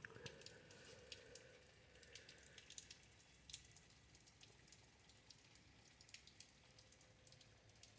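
Faint rain falling outside, with scattered irregular drips and taps, heard through a closed door.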